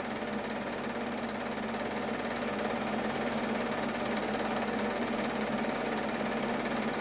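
8 mm film projector running: a steady, unbroken mechanical clatter with a motor hum.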